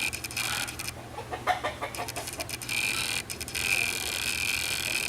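Chickens and guinea fowl calling, a string of short repeated calls.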